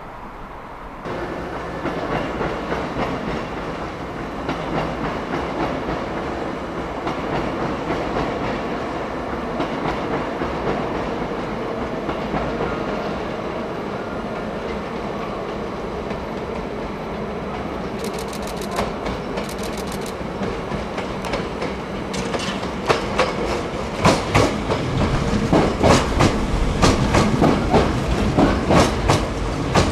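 Hankyu electric train running on the line, its wheels rumbling steadily and then clattering over rail joints. The clacks come thick and loud in the last eight seconds.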